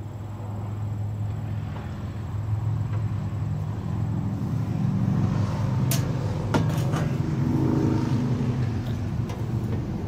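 A low, steady rumble with a hum in it, like a motor or engine running, that grows louder over the first few seconds. Over it come a few sharp metal clicks and clanks about six to seven seconds in, from the welder's sheet-metal cover panel being handled.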